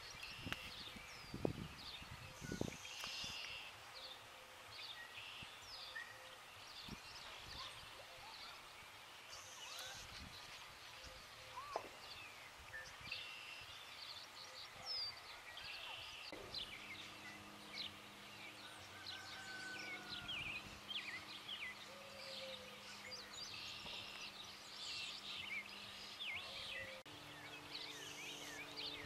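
Several birds chirping and trilling over a faint outdoor hush. There are a few dull low thumps in the first seconds, and a faint steady low drone comes in about halfway through.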